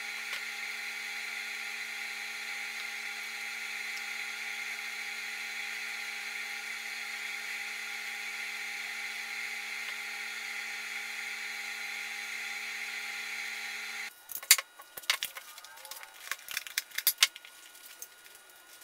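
A steady machine hum with a high whine, running without change, cuts off suddenly about fourteen seconds in. After it come scattered light clicks and taps of hands handling the leather seat cover and small parts.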